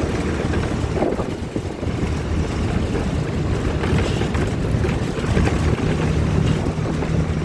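A heavy machinery engine running steadily with a low hum. About six seconds in, a higher engine tone comes in and holds.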